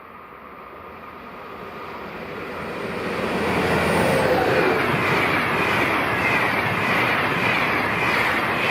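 Passenger train approaching and passing at high speed on a 200 km/h line. A rushing noise swells over about three seconds, then holds loud, with faint tones sliding down in pitch as it goes by.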